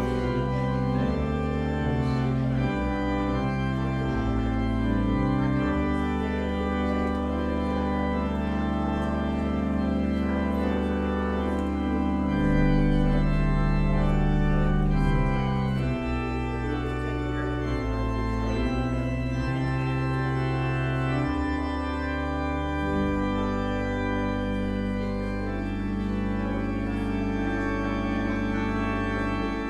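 Organ playing slow, sustained chords over deep held bass notes, swelling a little louder about halfway through.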